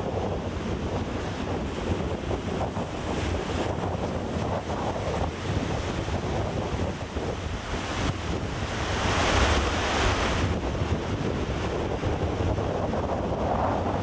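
Heavy storm surf: big ocean waves breaking in a continuous wash, with wind rumbling on the microphone. About eight and a half seconds in, a louder, hissing wave break swells up for about two seconds.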